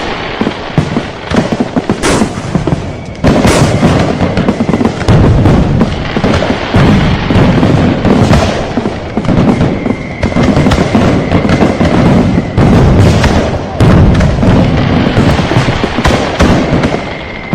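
Dense New Year barrage of firecrackers and fireworks: continuous rapid crackling packed with sharp bangs and heavy booms, with a thin steady high tone coming in about halfway.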